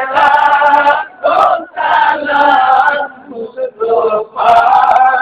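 A man singing a devotional Islamic chant into a microphone through the PA, in long, held melodic phrases with short breaks between them.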